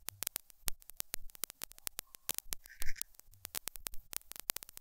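Scattered, irregular crackling clicks like static, with one short louder crackle about three seconds in.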